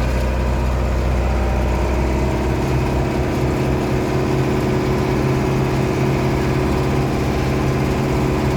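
Case 885XL tractor's four-cylinder diesel engine running steadily, heard from inside the cab; about two seconds in the engine note changes and then holds.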